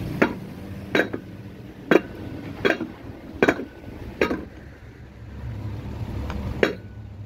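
A 36 V 250 W e-bike hub-motor wheel being lifted and struck axle-first down onto a wooden block, knocking the stator and axle out of the hub shell. Seven sharp knocks: six come about one every three-quarters of a second, then a pause before one more near the end.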